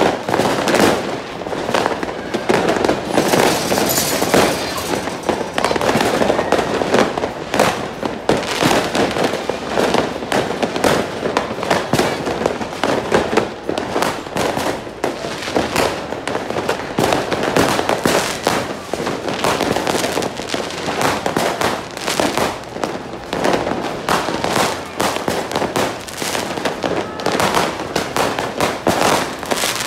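Fireworks and firecrackers going off without a break, a dense run of many overlapping bangs and pops.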